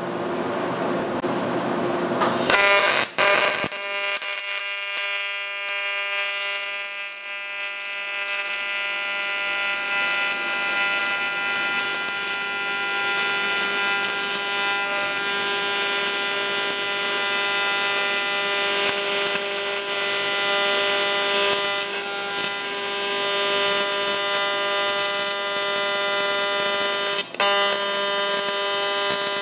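AC TIG welding arc on aluminum, a steady electric buzz, welding a sleeve onto the broken aluminum throwout-bearing snout of a manual transmission case. The arc strikes about three seconds in after a brief false start and breaks off for a moment near the end.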